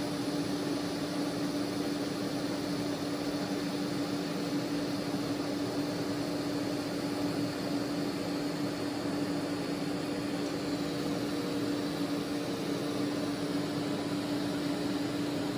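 Steady hiss with a constant low hum during TIG welding of thin 18-gauge stainless steel at about 35 amps, with argon flowing.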